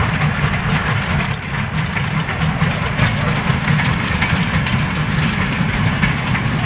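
Steam locomotive working a passenger train at a distance, its exhaust beating in a quick, even rhythm over a steady low rumble.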